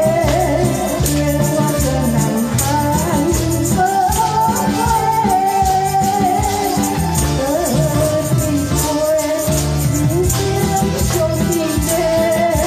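A woman singing into a microphone over an amplified backing track with a steady bass beat, while a hand tambourine is shaken along in time, its jingles ringing on the beat.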